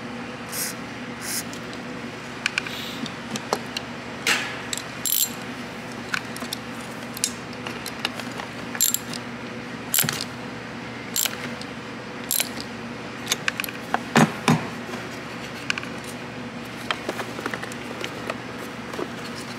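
Hand socket ratchet clicking and metal tools clinking on a car battery terminal clamp as its nut is loosened, with scattered sharp metallic taps and a louder flurry of knocks about two-thirds of the way through. A faint steady low hum runs underneath.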